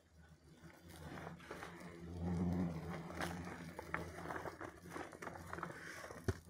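Hornets buzzing close by, a low hum that swells about two seconds in, over the crinkling and rustling of a plastic tarpaulin bee suit as the wearer moves.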